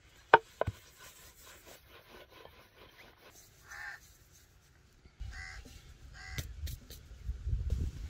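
A wooden rolling pin knocks twice sharply on a wooden rolling board, then rolls dough across it with a low rumble in the second half. A bird gives three short calls, the first a little before the middle and two more close together after it.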